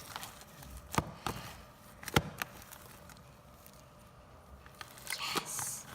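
Foam-bead slime being squished and worked by hand: a few sharp crackling pops, the loudest about two seconds in, and a soft crunchy rustle near the end.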